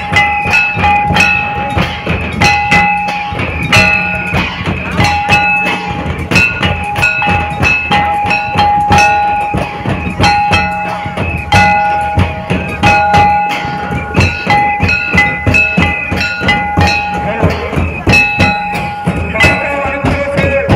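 Folk dance music: several large barrel drums beaten in a fast, driving rhythm, with a high melody instrument repeating a short tune of held notes over them.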